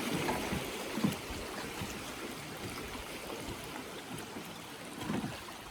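Flowing river water making a steady rushing, trickling noise, with a sharp knock about a second in and a softer one near the end.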